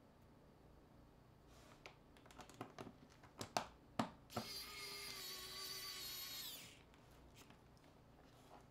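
A run of sharp clicks and taps of tools on a phone's parts, then a small electric precision screwdriver whirring for about two seconds, a high whine that winds down as it stops.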